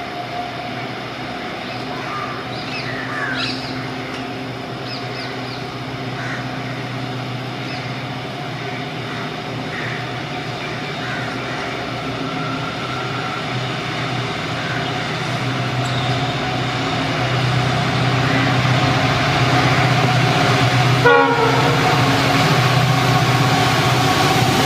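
Twin EMD WDP4 diesel locomotives, two-stroke V16 engines, working under power with a steady drone that grows louder as they approach hauling a passenger train. Birds chirp in the first few seconds, and the engine sound jumps closer near the end.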